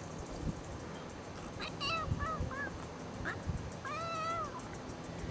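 Kitten meowing while a puppy wrestles on top of it: a run of short meows about two seconds in, then one longer, drawn-out meow about four seconds in. Soft scuffling thumps in between.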